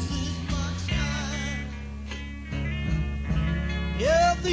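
Live 1960s psychedelic rock band playing: steady bass under a wavering lead line that bends in pitch, with a note sliding sharply upward near the end.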